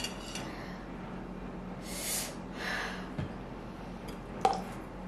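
A person's sharp, hissing breaths through the mouth, a couple of them about two seconds in, from the burn of ghost pepper noodles. Near the end comes a sip from a plastic water bottle's spout with a light click.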